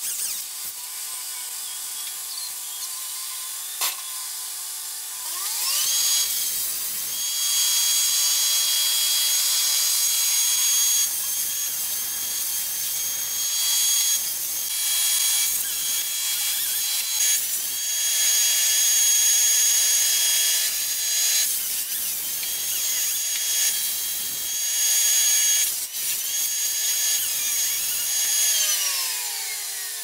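Chainsaw idling, then revved up about five seconds in and run at high speed in repeated stretches of a few seconds as it cuts through ash limbs, dropping back toward idle near the end.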